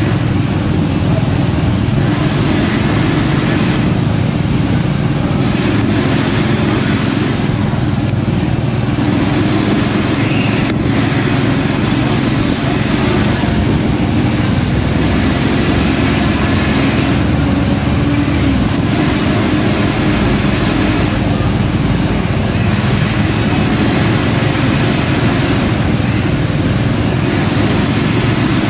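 A steady low drone of a running engine, unchanging in level, with no distinct events.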